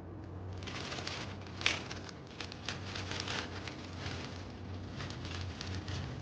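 Mechanical keyboard with Outemu Silent Lemon V2 silent tactile switches being typed on quickly: a dense run of soft, muted keystrokes starting about half a second in, with one louder stroke near two seconds.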